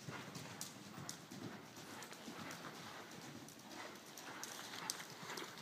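Hoofbeats of horses moving over the dirt footing of a riding arena: a run of soft, irregular hoof strikes.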